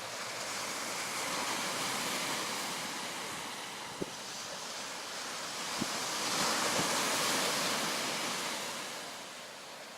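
Sea waves washing onto the shore, the surf swelling twice, with a few faint clicks.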